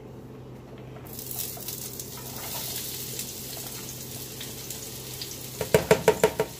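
Sliced onions sizzling as they drop into a hot skillet, the hiss starting about a second in. Near the end, a quick run of about six sharp knocks as the plastic container is tapped against the pan to shake out the last onions.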